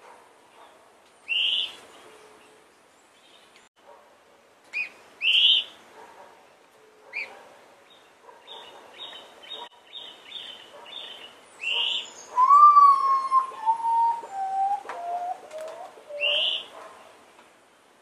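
Common potoo singing its mournful song: a long whistle followed by five or six shorter notes, each lower than the last. Other birds give short, sharp high chirps now and then, and a quick run of ticking notes comes before the song.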